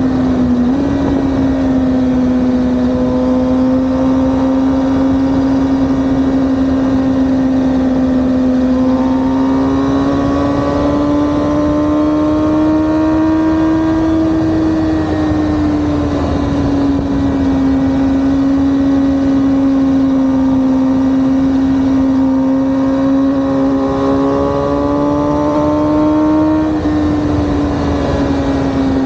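Sport motorcycle engine at a steady highway cruise, its pitch rising gently and falling back twice, over the rush of wind and road.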